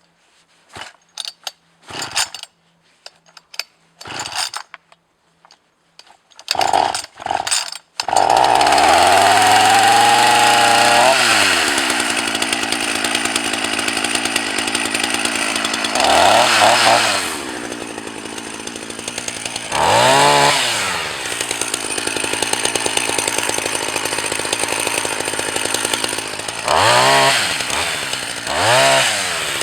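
Husqvarna 44 two-stroke chainsaw pulled on the starter cord a few times, catching about eight seconds in. It runs high briefly, drops toward idle, and is revved up and down four times.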